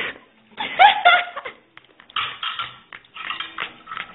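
Clinking and clattering of dishes and cutlery in short clusters, with a brief voiced sound, the loudest moment, about a second in.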